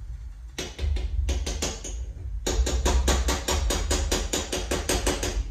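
A spoon knocking rapidly against the side of a cooking pot as a scoop of silicone mix is stirred into hot water, about five or six knocks a second. There are two runs of knocks with a short break about two seconds in.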